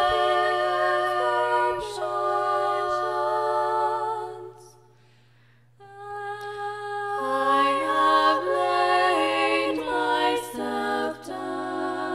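Background music of a cappella voices singing slow chords, holding each note and stepping from one to the next. The singing dies away about four and a half seconds in and comes back a second later, with lower voices joining.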